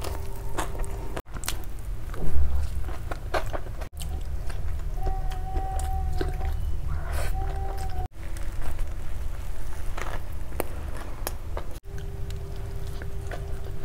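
Close-miked eating sounds: biting and chewing into a soft burger bun, a fried egg pakoda and a mouthful of noodles, with wet smacks and crackles. They come in short pieces cut together, with a louder bite about two and a half seconds in.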